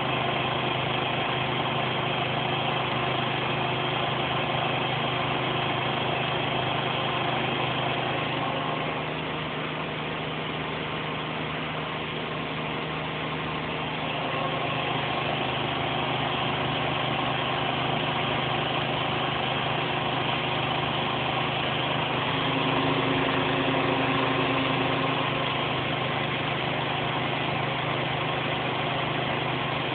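Zanker Profimat PF6650 washing machine in its final high-speed spin at 1600 rpm: a steady motor and drum hum with several whining tones. It dips slightly for a few seconds about ten seconds in, then comes back up.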